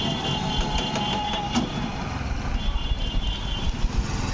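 Road traffic of motorcycles passing close by, with a low engine rumble that grows near the end. A rapid, high electronic beeping sounds in two spells over it.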